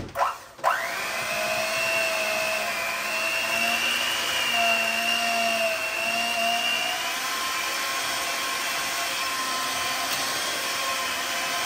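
Electric hand mixer switching on about half a second in and running steadily, its beaters churning a thick cottage cheese and milk mixture in a bowl. The pitch of its whine shifts about seven seconds in.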